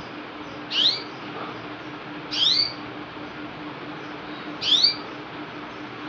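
Domestic canary giving three short chirping calls, each a quick slurred whistle, about two seconds apart, over a steady low hum.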